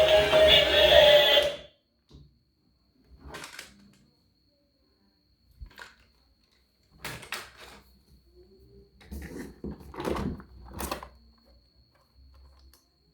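Music that cuts off abruptly about a second and a half in, followed by scattered clicks, knocks and rattles, busiest near the middle and end, over a faint steady high whine.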